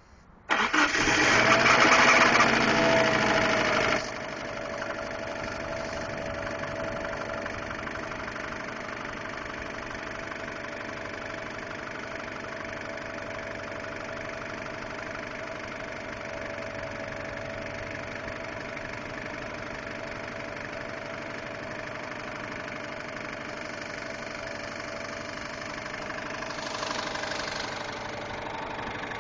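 2002 Subaru Impreza WRX turbocharged flat-four engine starting up about half a second in. It runs loud for a few seconds with a rise and fall in pitch, then settles into a steady idle. Under the idle is the weird ticking noise from the engine that the owner has been hearing for about two weeks.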